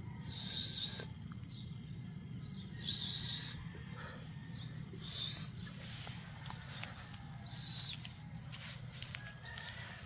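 Young black cat hissing four times, short sharp hisses a couple of seconds apart, a defensive warning at a hand reaching toward it.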